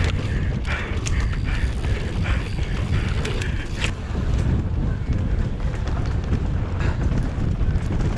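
Wind buffeting the microphone of a mountain bike rider's action camera, with scattered clicks and rattles from the bike and its tyres on the dirt track.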